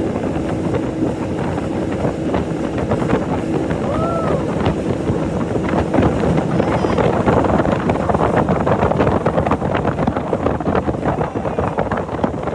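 Motorboat running fast, with heavy wind buffeting the microphone and rushing water. A steady engine hum fades out about halfway through, and a short tone rises and falls about four seconds in.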